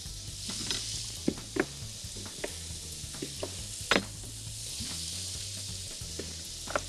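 Food sizzling steadily in a pan on the hob, with scattered light taps and clicks as eggplant slices are laid out on a metal baking tray, one sharper knock about four seconds in.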